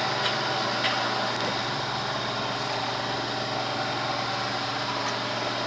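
Steady mechanical hum and fan-like whir of a running machine, with a couple of faint clicks in the first second.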